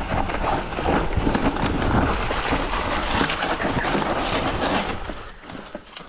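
Mountain bike riding over a rocky trail: the tyres crunch and clatter on rocks and the bike rattles in a dense run of knocks. It gets much quieter about five seconds in.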